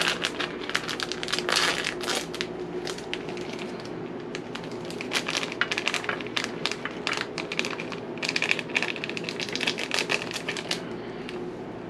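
Cheese packet crinkling and crackling in irregular bursts of rapid clicks as it is opened and the shredded cheese is shaken out over the chicken.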